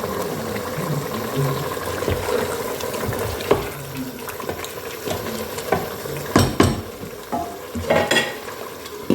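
Food sizzling in a pot while it is stirred, with a few sharp knocks of the spoon against the pot, two of them close together past the middle.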